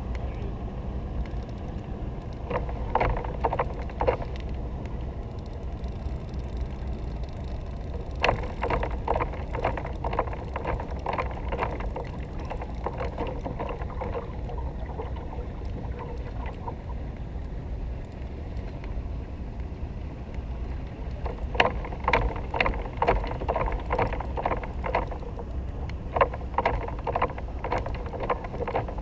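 Spinning reel clicking in several bursts of one to three seconds as a hooked fish is played on the rod, over a steady low rumble.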